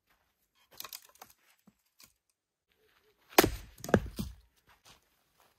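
An axe splitting firewood on a chopping stump. A few light wooden knocks come about a second in, then one hard chop about three and a half seconds in, with another knock half a second later.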